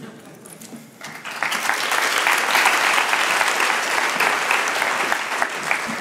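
Audience applauding at the end of a talk. The clapping swells about a second in and tapers off near the end.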